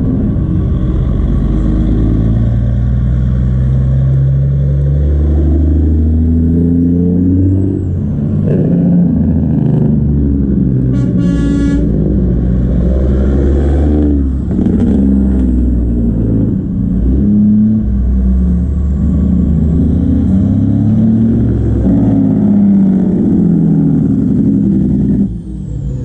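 Diesel semi-truck engines running as tractor-trailers roll by, the engine note rising and falling. A truck air horn sounds once for about a second, roughly eleven seconds in.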